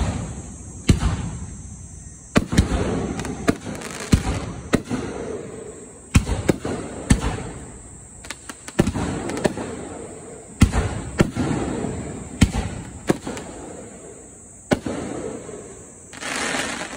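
Aerial fireworks shells bursting overhead in a rapid, irregular barrage: sharp bangs often less than a second apart, with crackling sparks between them and a denser crackle near the end.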